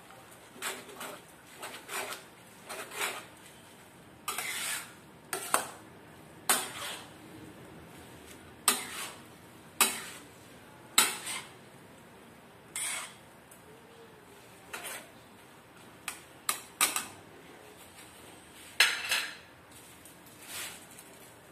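Spatula clanking and scraping against a wok as stir-fried noodles are tossed, in irregular strikes about one a second.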